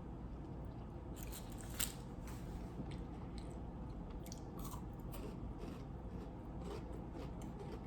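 Biting and chewing a Milky Way Crispy Roll, a chocolate-coated wafer roll, with scattered crisp crunches; the sharpest crunch comes about two seconds in.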